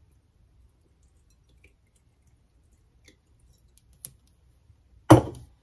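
A few faint clicks of a glass and bottle being handled, then one loud knock about five seconds in that rings off briefly.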